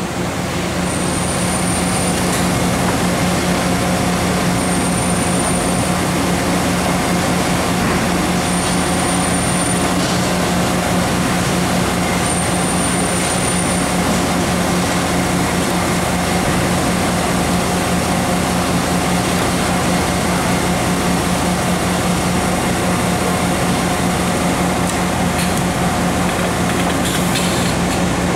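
Royal Master Generation X guidewire centerless grinder running: a steady machine noise with a constant low hum. Four brief high-pitched whistles come about four seconds apart in the first half.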